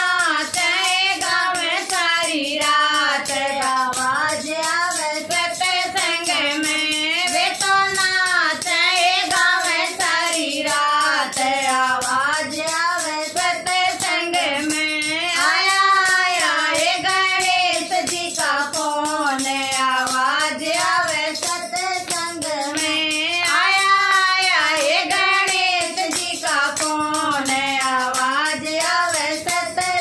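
Women's voices singing a devotional bhajan to Ganesh in unison. Hand claps and wooden kartal clappers keep a steady beat.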